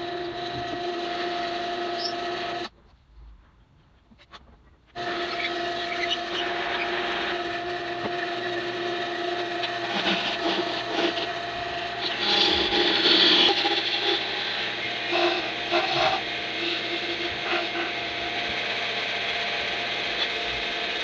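Wood lathe running with a steady hum while a turning gouge cuts into a spinning segmented mahogany-and-alder handle blank, giving a rough scraping, rasping sound. The sound drops away for about two seconds near the start, and the cutting is loudest about halfway through.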